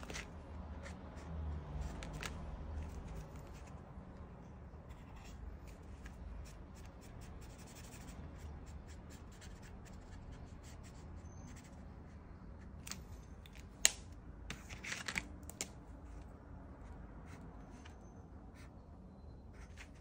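Acrylic marker nib scratching and rubbing across a canvas panel in many short strokes as an area is coloured in. A single sharp click about 14 seconds in is the loudest sound, followed by a brief burst of louder scratching.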